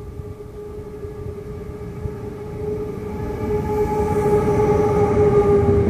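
Electric freight locomotive approaching and passing at speed, hauling a train of semi-trailers on rail wagons. A steady hum with overtones rides over the rumble of the wheels and grows louder as the train nears, loudest near the end.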